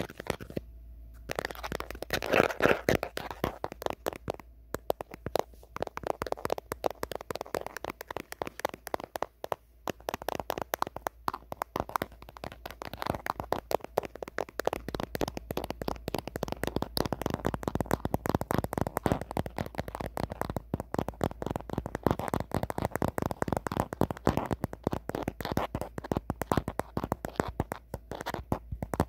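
Natural fingernails tapping and scratching on an old phone's camera and casing: a fast, continuous stream of light clicks with brief lulls.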